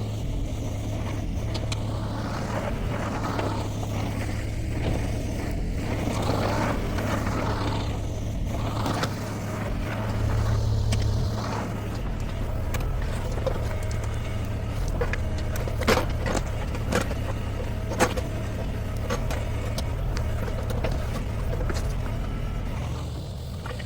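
Shantui STE35SR mini excavator's diesel engine running steadily under working load, its hydraulics swelling and easing, with three sharp cracks or knocks about two-thirds of the way through.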